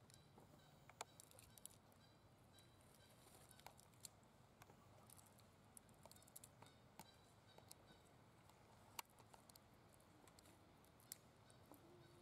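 Near silence: faint outdoor background with scattered small clicks and crackles.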